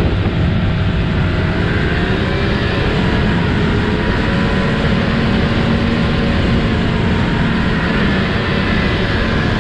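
Snowmobile engine running steadily at trail speed, its pitch wavering gently up and down, over a heavy low rumble.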